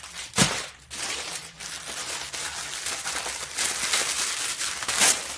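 Plastic shirt wrapping and tissue paper rustling and crinkling as they are handled. There are two sharper, louder crackles, one about half a second in and one near the end.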